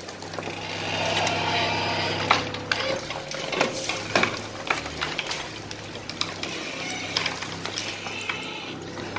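An excavator's diesel engine running steadily, with scattered knocks and crunches of rubble breaking and falling as a house is torn down.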